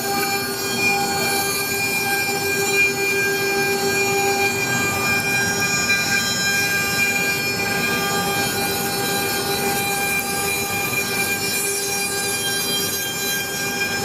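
CNC router spindle running steadily while its end mill cuts a relief into a wooden board: a constant whine of several even tones over rough cutting noise.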